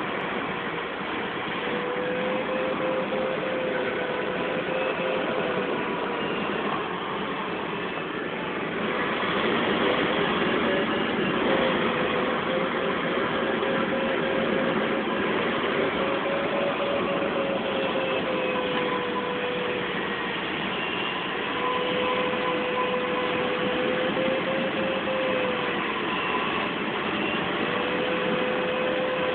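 Air rushing over an ASK-13 glider's canopy, heard from inside the cockpit as a steady hiss. A held tone rides on it, wavering slightly in pitch and dropping out briefly a few times.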